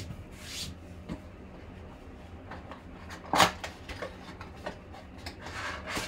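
A cardboard 2020 Panini Select mega box being handled and opened by hand: rustling and sliding, a sharp snap as the flap is pried open about three and a half seconds in, then crackly rustling as the contents are pulled out near the end.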